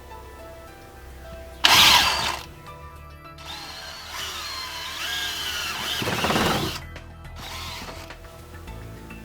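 Cordless drill drilling with a 3/8-inch bit: a brief loud burst, then a longer run of a few seconds in which the motor's pitch wavers and shifts as the bit cuts, with background music underneath.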